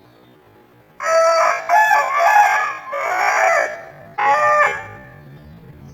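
Aseel rooster crowing: a long crow of several drawn-out notes starting about a second in, followed by a shorter second crow about four seconds in.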